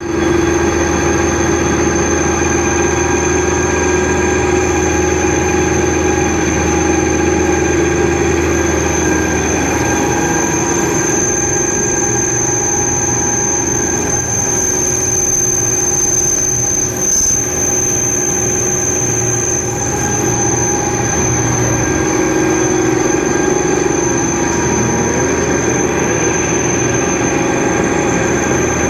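Metal lathe turning and cutting a steel bar: a steady machine hum under a constant high-pitched whine.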